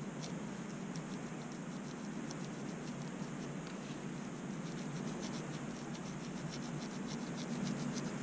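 Fine-tooth comb scratching against the scalp, scraping off dandruff flakes in many short, quick strokes that come thicker from about five seconds in, over a steady low hum.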